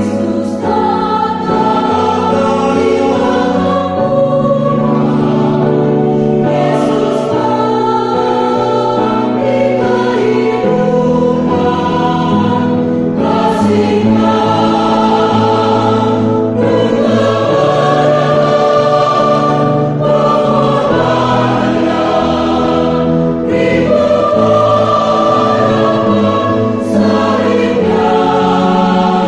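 Church choir of mixed women's and men's voices singing a hymn in parts, holding long notes in phrases with short breaks between them.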